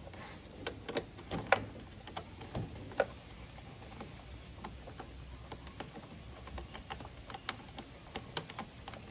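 Scattered small metallic clicks and taps as the negative battery cable terminal, its clamp bolt already loosened with an 8 mm wrench, is worked loose and pulled off the battery by hand; the sharpest clicks come about a second and a half and three seconds in.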